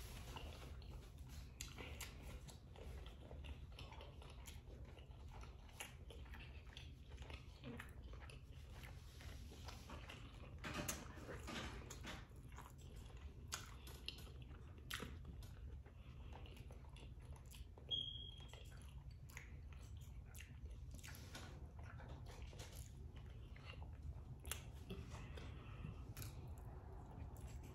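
A person chewing and biting food close to the microphone, here boiled potato from a shrimp boil, with many soft mouth clicks scattered through. A short high squeak about two-thirds of the way in.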